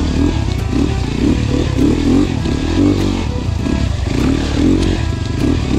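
Enduro dirt bike engine running as it is ridden off-road, its revs rising and falling again and again with the throttle.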